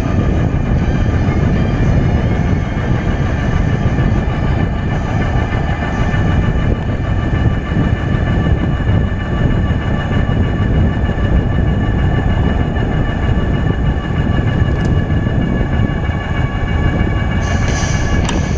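Steady wind rush and low rumble from riding an e-bike at speed, with a constant high whine of several steady tones held above it.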